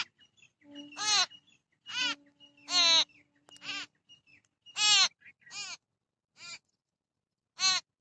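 Babblers calling: a string of about eight harsh, nasal calls at irregular intervals of roughly a second, some louder and longer than others.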